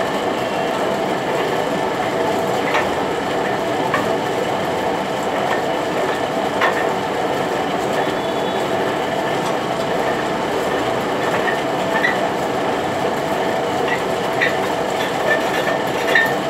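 Old metal lathe with a long metal shaft mounted, running steadily, with a few sharp clicks scattered through, more of them near the end.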